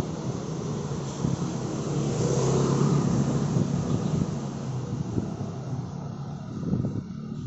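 Street traffic with a motor vehicle passing, its engine hum and tyre noise swelling about two to four seconds in and then fading.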